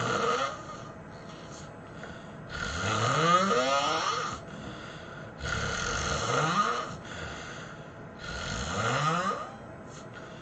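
A person snoring heavily: three long, rasping snores about three seconds apart, each rising in pitch as it goes, with the tail of another at the start.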